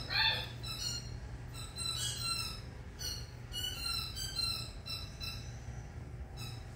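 Miniature dachshund puppies playing and tugging on plush toys: a run of short, high-pitched squeaks, the loudest right at the start, over a low steady hum.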